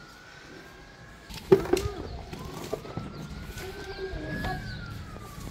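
A bucket set down hard on a tiled stair step with one sharp knock about a second and a half in, followed by a few lighter knocks. In the background a siren slowly rises and then falls in pitch.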